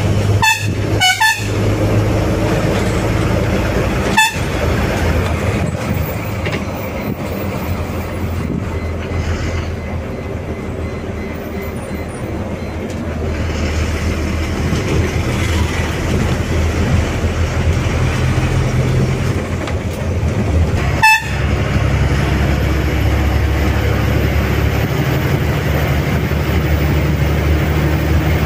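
Diesel engine of an Ashok Leyland BS-6 bus running under way with steady road noise, its note shifting a few times. A few brief sharp sounds stand out about half a second, a second, four seconds and twenty-one seconds in.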